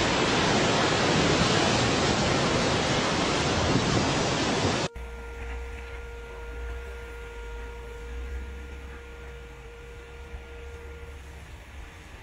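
Loud, even rushing noise of ocean surf and steam where lava pours off a sea cliff into the sea. It cuts off abruptly about five seconds in, leaving a much quieter low rumble with a faint steady hum.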